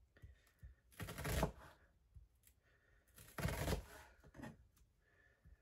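Kitchen knife slicing thin rings from a red onion on a cutting board: two cutting strokes, about a second in and again about three and a half seconds in, with a lighter cut just after.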